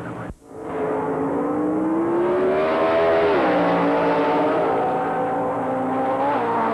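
Comp eliminator dragster's racing engine at full throttle down the drag strip, its pitch rising for a few seconds, dropping sharply a little past the midpoint, then holding and dropping again near the end. Just after the start the sound cuts out briefly.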